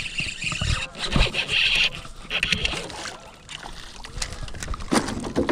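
Canoe handling noises: irregular knocks and scrapes on the hull with water sloshing, busiest in the first three seconds.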